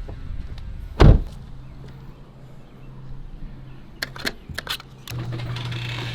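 A door shuts with a heavy thunk about a second in, followed a few seconds later by several sharp clicks and rattles. A steady low hum comes in near the end.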